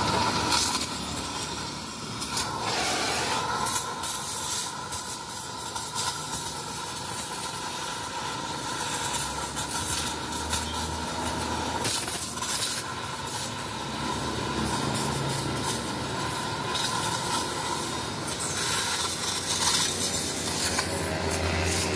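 Power tool cutting into the steel of a Yamaha Mio motorcycle muffler to break out its second internal baffle: a steady whine over harsh metal-cutting hiss, with the whine dipping briefly about three seconds in.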